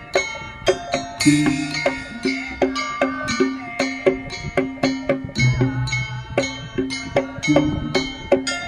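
Non-brass marching drum band playing a piece: a melody on pitched instruments over regular drum strokes, with a cymbal crash about a second in.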